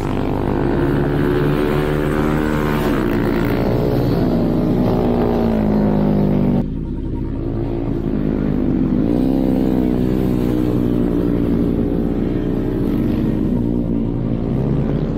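Small motorcycle engines of pit bikes and Honda Groms revving up and down as they lap the track, the pitch rising and falling through the gears. The sound changes abruptly about seven seconds in.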